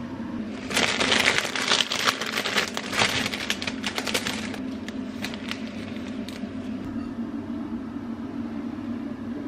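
Bunches of cut flowers being handled and their stems trimmed: a dense run of crinkling, crackling and snipping for about four seconds, then only a few faint clicks over a steady low hum.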